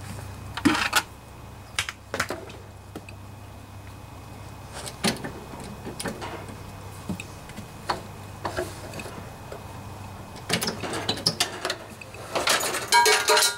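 Irregular metallic clunks and rattles from a Snapper riding mower's hydrostatic transaxle and its loose fittings as the unit is wheeled out from under the frame. The knocks come singly at first and crowd together near the end, over a steady low hum.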